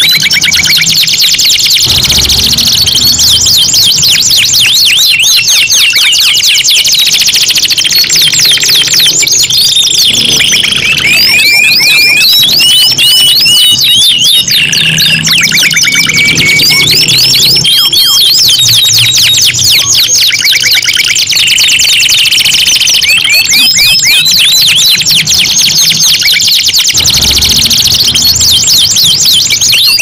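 Several domestic canaries singing at once: a loud, unbroken stream of high, fast trills and rolls, with a few held, steadier notes here and there.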